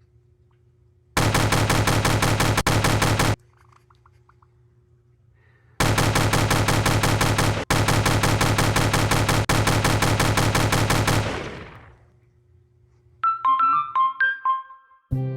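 Machine-gun fire sound effect in two long rapid bursts: a short one, then a longer one that fades away. A few short high-pitched chirps follow, and music begins at the very end.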